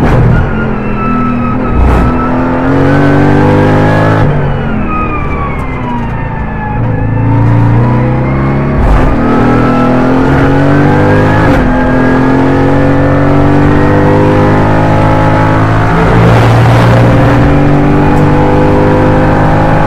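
Mercedes-AMG GT4's twin-turbo V8 race engine heard from inside the cockpit at racing speed. The engine note falls over a few seconds as the car slows for a corner, then climbs under hard acceleration in second gear, broken by quick upshifts about nine and eleven and a half seconds in.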